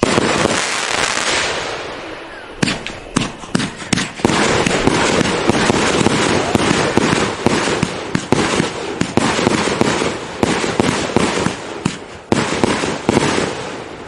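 Fisherman Fireworks "White Noise" aerial fireworks firing shot after shot. A loud bang opens, then single sharp reports come, and from about four seconds in a dense, rapid run of bangs and crackle follows. Another loud shot comes near the end.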